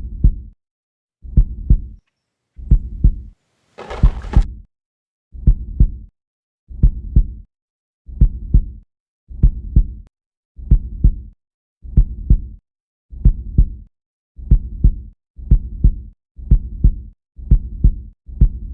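Heartbeat sound effect: paired low thumps, lub-dub, about every second and a half, quickening toward the end. A brief hiss sounds about four seconds in.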